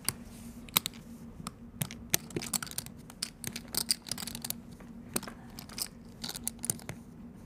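Poker chips clicking and clacking irregularly as players handle and shuffle them at the table, over a faint steady hum.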